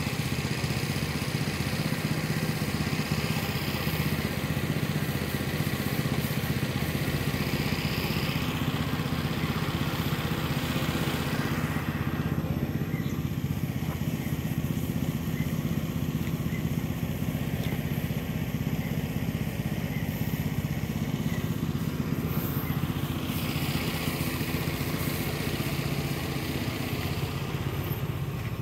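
An engine running steadily at one even speed, a constant hum that does not change in pitch.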